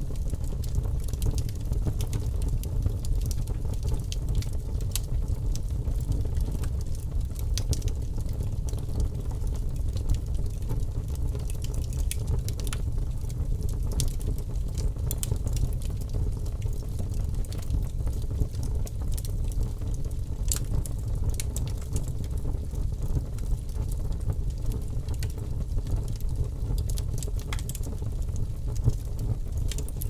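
Split-log campfire burning: a steady low rumble of flame with irregular sharp crackles and pops from the wood.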